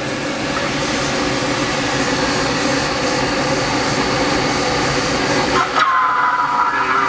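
Steady rush of airflow with a low drone inside a glider's cockpit in flight. About six seconds in the drone drops away and a steady high tone comes in.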